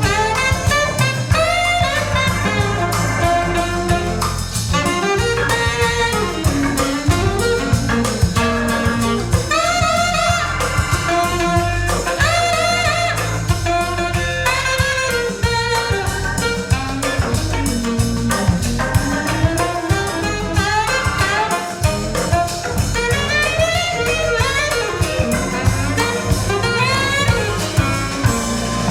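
A jazz recording with horns over bass and drum kit, played back over Sonus Faber AIDA 2 SE hi-fi loudspeakers in a demo room.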